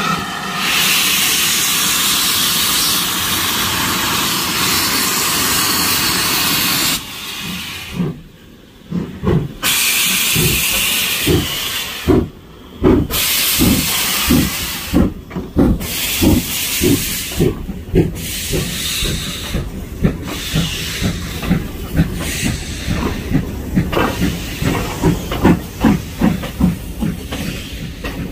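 Steam locomotive No. 9351 letting off a loud, steady hiss of steam, then pulling away: slow, regular exhaust chuffs that gradually quicken as it gets under way.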